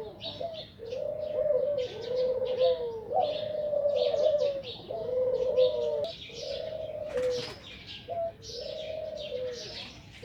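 Doves cooing over and over, roughly one coo a second, with small birds chirping steadily in a higher register above them.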